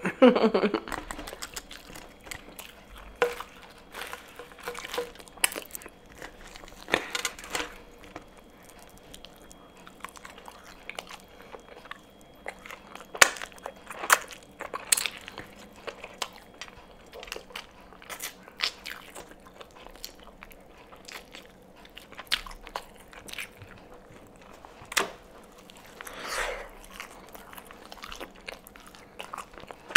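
A person biting and chewing fried chicken close to the microphone: irregular crunches and mouth clicks.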